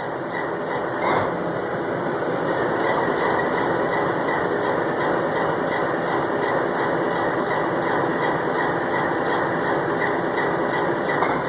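GE 4,400-horsepower diesel locomotive engine idling with an even, pulsing beat and a brief louder burst about a second in.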